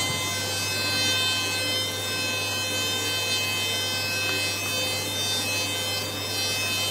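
Taiyo jointer running with a steady whine from its spinning cutterhead as a long wooden board is fed across it and planed.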